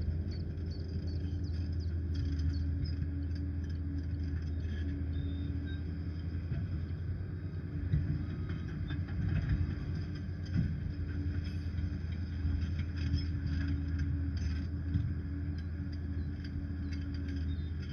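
Liebherr PR 746 crawler dozer's diesel engine running with a steady low drone and a constant whine, with scattered light clanks and rattles over it.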